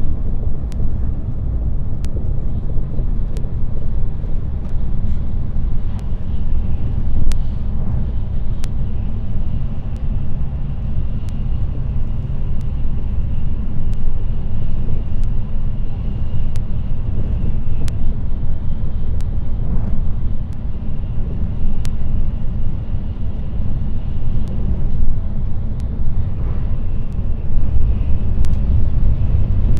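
Steady low rumble of a Japanese bullet train running at speed, with sharp ticks every second or two.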